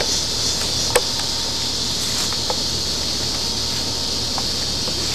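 A steady high chorus of insects, with a single sharp click about a second in and a few faint ticks later.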